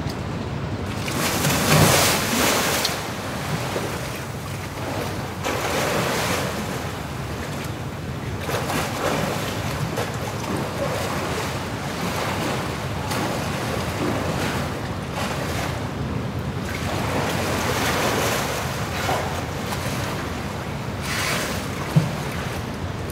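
Polar bears splashing and wrestling in a pool: continuous sloshing and churning water with repeated louder surges of splashing, the loudest about two seconds in, and a short sharp knock near the end.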